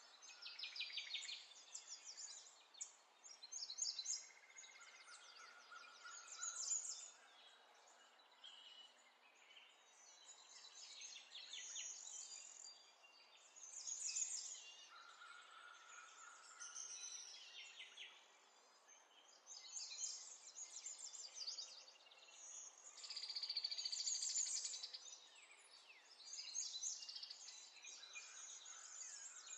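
Faint songbirds chirping and trilling in quick series of notes, over a low steady hiss, with a few short whistled notes lower in pitch.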